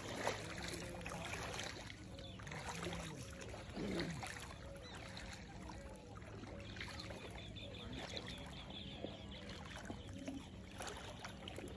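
Water sloshing and splashing irregularly as a person wades through shallow, weedy water.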